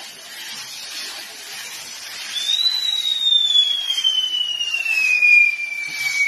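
A fireworks castle burning: a steady hiss from its spinning pinwheels spraying sparks. About two seconds in a whistle joins it, rising briefly and then sliding slowly down in pitch.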